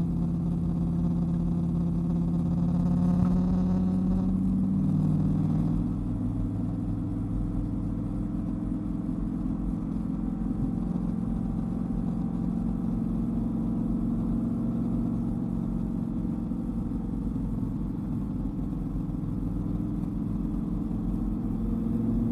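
Dodge Viper's V10 engine running under way at a steady pace; its note rises a little about three seconds in, drops around five to six seconds in, then holds before climbing again near the end.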